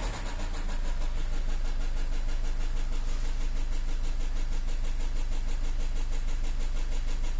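Nissan X-Trail 2.0 dCi four-cylinder diesel (a Renault engine) running steadily with a fast, even knock from inside the engine. The mechanic feels it is a piston striking the valves.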